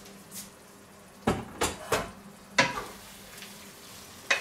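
Off-screen clatter of metal utensils against cookware: half a dozen sharp clinks and scrapes at uneven intervals, the loudest a little past the middle and one near the end.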